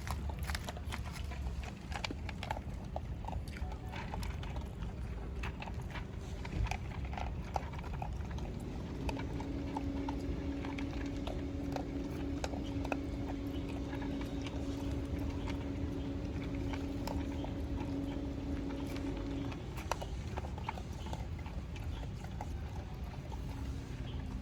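Street dogs eating, with many quick crunching clicks. A steady low hum joins in from about a third of the way through and stops a few seconds before the end.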